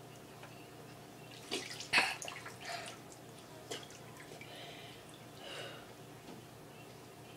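Water splashing and dripping in a bowl as a head is lifted out after bobbing, with a cluster of sharp splashes and drips about one and a half to three seconds in and one more just before four seconds, then softer wet sounds.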